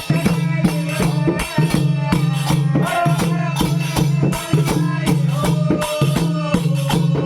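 Bhajan devotional music: a voice singing over a steady low drone, with regular hand percussion striking about three times a second.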